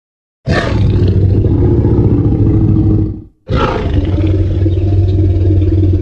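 Jurassic Park Tyrannosaurus rex roar sound effect, played twice back to back: two long, deep roars of about three seconds each, each opening with a harsher, higher edge, separated by a brief pause.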